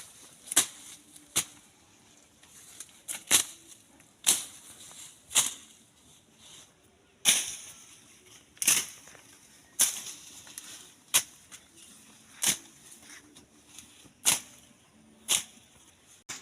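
A hand slasher blade swung into the bushy growth of a live fence: about a dozen sharp cutting strokes, roughly one every second or so, at uneven intervals.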